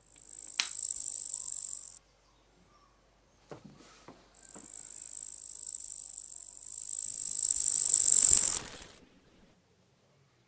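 High-pitched insect-like buzzing, a shrill chirring sound effect. It stops abruptly after about two seconds. After a few soft knocks it returns, swells steadily louder to a peak about eight seconds in, then fades away.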